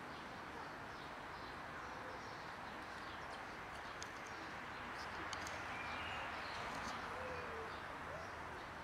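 Steady outdoor background noise with faint crackling clicks of cats crunching dry kibble, and a few faint chirps from birds.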